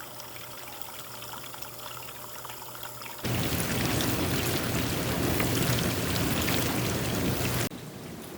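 Water rushing into a Maytag dishwasher tub through the inlet valve as it fills, with a low steady hum; the fill works now that the new control board powers the water valve. About three seconds in the water sound abruptly gets much louder for about four seconds, then drops back.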